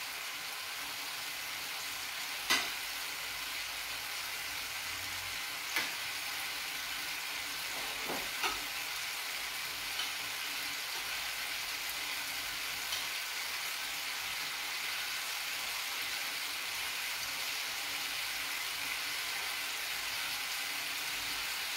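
Turkey involtini sizzling steadily in a frying pan of sauce, with a few sharp pops and spatters, the loudest about two and a half seconds in.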